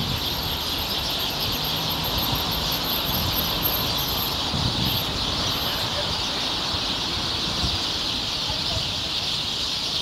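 A flock of many small birds chirping at once in a tree, making a dense, continuous high twittering without a break.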